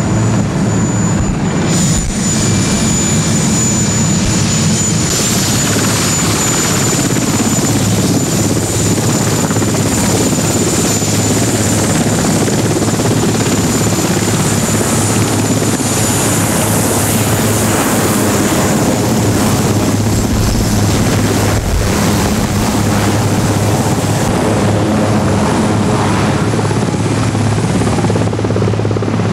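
Marine One, a Sikorsky VH-3D Sea King helicopter, running loud and steady: the rotor and its twin turbine engines as it flies in and hovers low to land.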